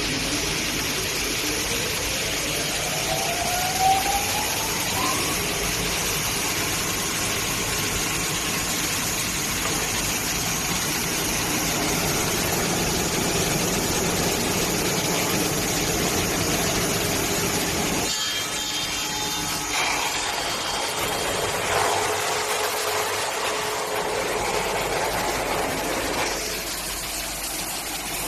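Industrial wide planer sanding machine (1300 mm working width) running steadily while boards feed through on its conveyor. A rising whine sounds in the first few seconds, and the low rumble thins out about two-thirds of the way through.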